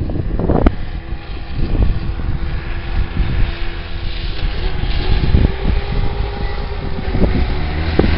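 Snowmobile engine running steadily under a heavy low rumble, its tone rising slightly about halfway through.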